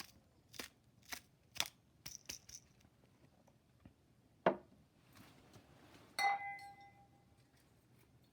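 Light clicks and taps of kitchen items being handled, then a sharp knock about four and a half seconds in and a ringing glass clink about six seconds in.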